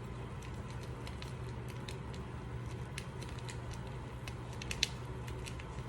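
Scattered light clicks and ticks from kitchen handling over a steady low hum, with one sharper click about five seconds in.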